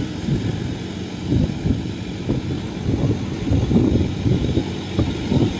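Heavy diesel engine of a farm machine under load as it climbs a steep dike, a dense, uneven low rumble that surges and eases.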